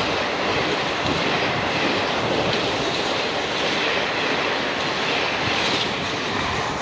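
Express passenger train rushing past at high speed: a steady, loud rush of coach wheels on the rails.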